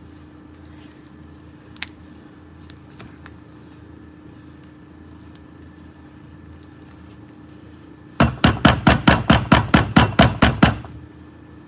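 A spatula knocking rapidly against a glass mixing bowl as thick cake batter is beaten: about fifteen loud, sharp knocks at roughly six a second, lasting two and a half seconds, starting about eight seconds in. Before that only faint stirring clicks over a low, steady hum.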